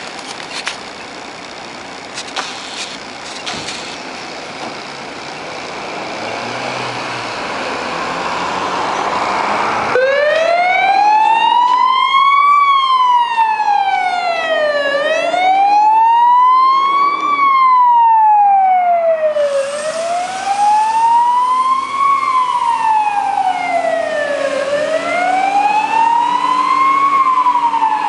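Renault Midlum fire engine setting off on an emergency call: engine noise grows louder for the first ten seconds, then the siren starts up in a slow wail, rising and falling about every five seconds.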